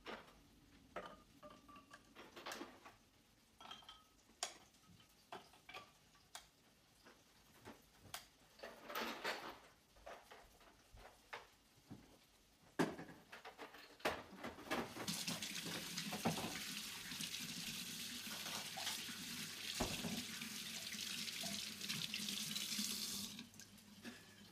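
Kitchen tap running into a sink for about nine seconds, starting about halfway through and shut off near the end. Before it, light scattered taps and clicks of hands working at a cutting board, with one sharp knock just before the water starts.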